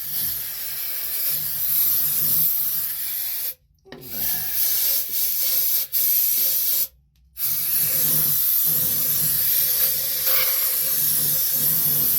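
Aerosol can of ether spraying in three long bursts, each a steady loud hiss that cuts off sharply, with short gaps about three and a half and seven seconds in.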